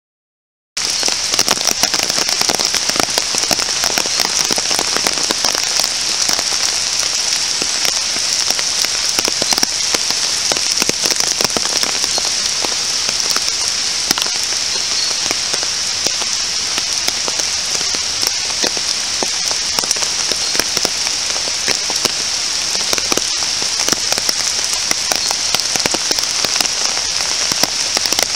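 Steady rain falling, a dense patter of individual drops over an even hiss, starting abruptly about a second in.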